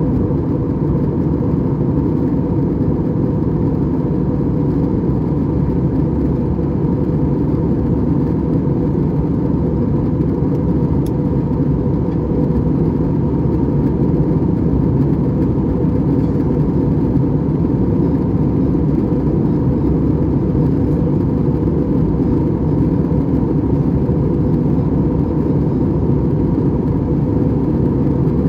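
Steady cabin noise of a JetBlue Airbus A320-200 in flight, heard inside the cabin: an even, low rush of engine and airflow noise from its IAE V2500 turbofans, with a faint steady tone above it.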